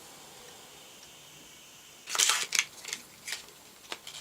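Cosmetic packaging being handled: after a quiet start, a loud brief rustle about halfway through, followed by a few light clicks and taps.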